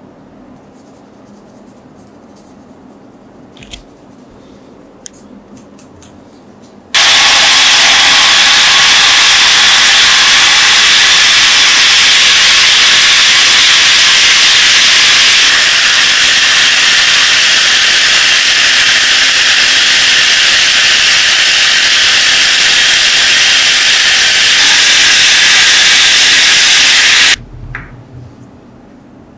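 A few light clicks of small metal parts being handled. Then a powered wire-wheel brush runs against a threaded metal rod, cleaning it: a loud, steady hiss that starts suddenly about seven seconds in and cuts off near the end. A few faint clinks of metal parts follow.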